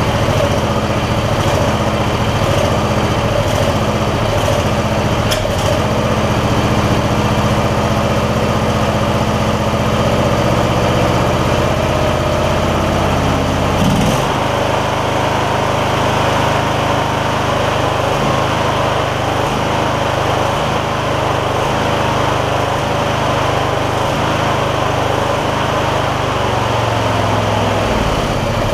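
A garden tractor's 20 horsepower V-twin engine running steadily on a test run after its carburetor jets were sprayed clean and dirt was cleared from the intake. About halfway through, its running note changes suddenly and the deepest part of the sound drops away, then it runs on evenly.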